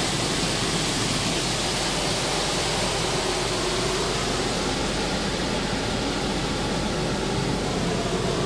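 Car wash machinery running: a steady rushing hiss, with a faint hum that slowly rises in pitch from about halfway through.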